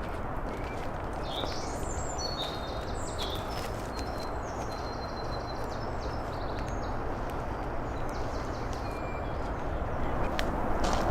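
Outdoor ambience: small birds chirping and twittering over a steady rushing background noise, with a few scattered clicks. The background noise grows louder near the end.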